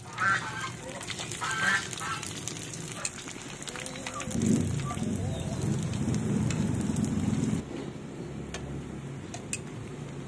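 Dried danggit frying in hot oil in a pan: steady sizzling with many small crackles. A louder low rumble runs for about three seconds in the middle, and two short higher-pitched sounds come in the first two seconds.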